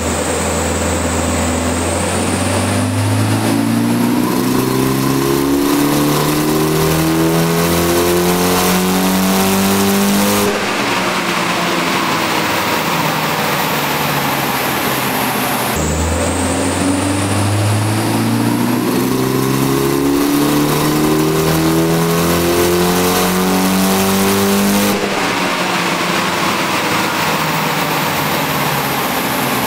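Turbocharged 2.0-litre four-cylinder of a Mitsubishi Lancer Evolution VI at full throttle on a chassis dyno: the engine climbs steadily in revs for about ten seconds, then lifts off and the revs fall. A second run starts abruptly about sixteen seconds in and does the same, climbing for about nine seconds before falling away, with a high whine rising alongside each climb.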